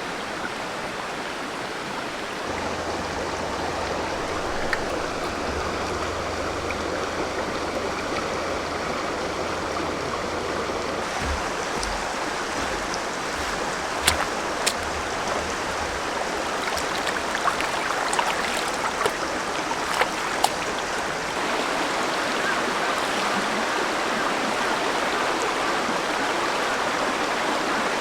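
River water running steadily, with a few sharp clicks or taps near the middle.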